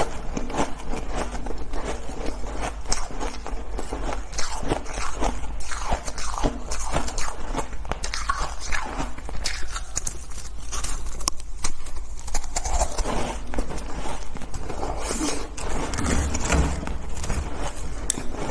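Frozen shaved-ice chunks being bitten and chewed close to a clip-on microphone: a dense run of crisp crunches and crackles, with many sharp snaps as pieces break off.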